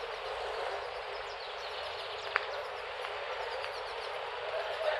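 Steady outdoor background noise with faint bird chirps, and a single sharp click about two and a half seconds in.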